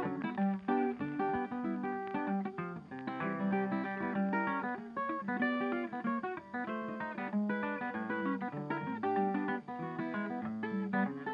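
Background music: a guitar playing a quick, continuous run of plucked notes.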